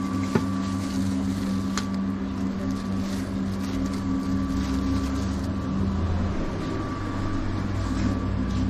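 Steady low machine hum of shop equipment, with a short sharp click about half a second in.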